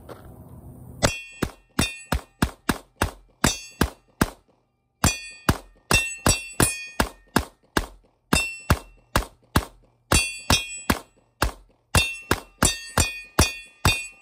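Handgun with an extended magazine fired in a rapid magazine dump: a long string of sharp cracks, about three a second, each with a short ringing tail, with one brief pause a little after four seconds in.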